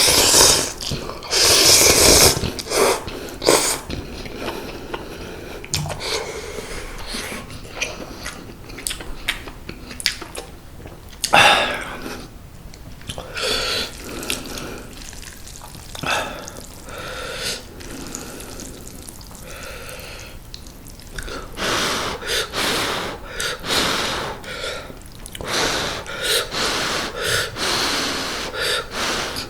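A person eating mala instant noodles close to the microphone: repeated loud slurps in irregular bursts, with quieter chewing between them.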